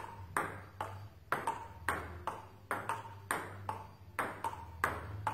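Table tennis rally: the celluloid-style ball clicking off bats and the table in a steady back-and-forth, about two to three hits a second, each with a short ping.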